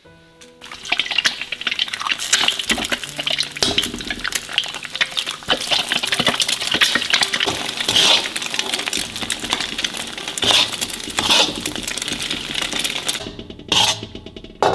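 Egg sizzling and spitting in hot oil in a stainless-steel wok, stirred and scraped by a metal spatula with frequent scrapes and clinks against the pan. It dies down near the end as the egg is lifted out.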